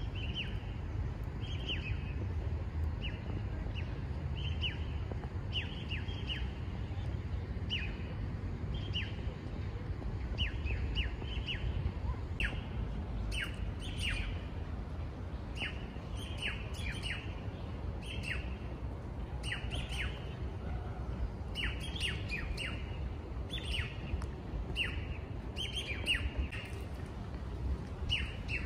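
Small birds chirping, many short high chirps that drop quickly in pitch and come more thickly in the second half, over a steady low outdoor rumble.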